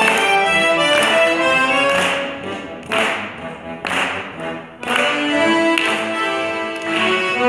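Accordion orchestra playing sustained chords punctuated by sharp accents about once a second. About two seconds in the playing thins to a few short stabs, and the full ensemble returns near five seconds.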